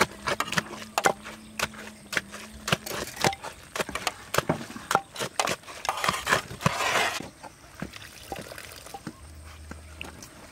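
Wooden pestle pounding and mashing a soft mixture in a clay mortar: an irregular run of knocks, about three a second. The pounding stops about seven seconds in.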